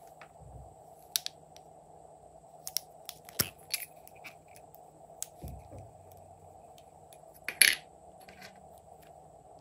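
Plastic lipstick tubes being handled and uncapped: a few sharp clicks and taps, the loudest near the end, over a faint steady hum.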